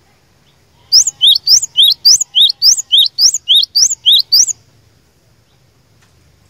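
Cinereous tit (glatik batu) singing a fast, loud run of two-note phrases, a high rising note then a lower one, repeated about six times over three and a half seconds before it stops.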